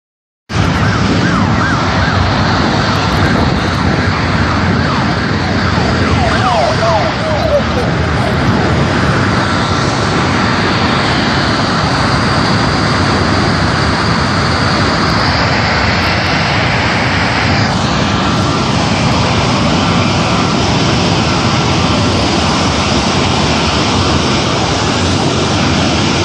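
Jet engine of a crashed fighter jet running with a loud, steady roar and a high whine; part of the whine drops away about eighteen seconds in.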